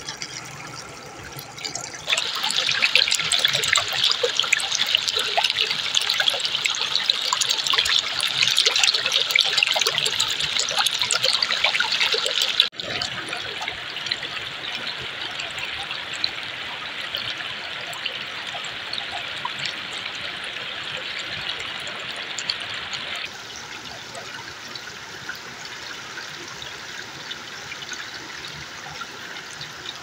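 Shallow river water running and trickling over rocks, with small splashes and droplets. The sound jumps louder about two seconds in, drops somewhat about thirteen seconds in, and drops again about twenty-three seconds in.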